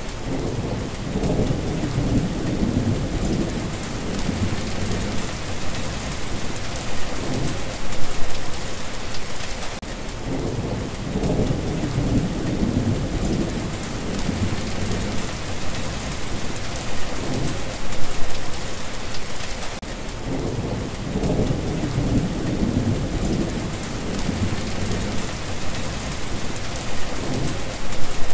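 Steady rain hissing, with rolling rumbles of thunder swelling and fading several times. The same stretch of storm repeats about every ten seconds, a looped recording.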